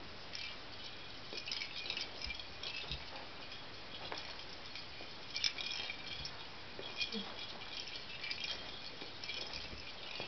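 Small plastic lattice toy ball jingling irregularly as a rabbit pushes it about with its nose, in short bright clusters of jingles, with a few soft thumps.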